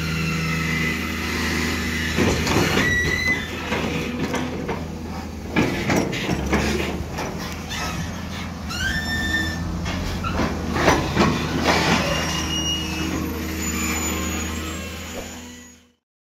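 Hydraulic crawler excavators with their diesel engines running steadily. From about two seconds in come repeated metal clanks and a few rising, high squeals of steel on steel. The sound fades out at the very end.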